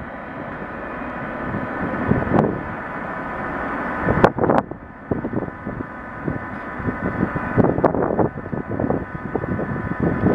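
Camera microphone buffeted by light rain and wind, giving an uneven rumble and thudding over a steady hum. Two sharp knocks come about four seconds in.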